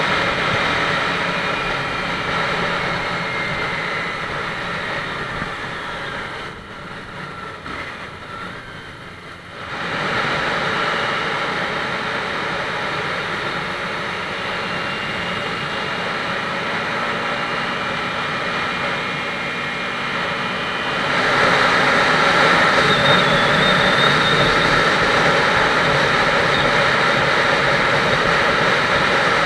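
Motorcycle riding at road speed, heard from an action camera on the bike: the engine runs under a steady rush of wind on the microphone. It drops quieter and duller for about three seconds around a quarter of the way in, and gets louder again about two-thirds of the way through.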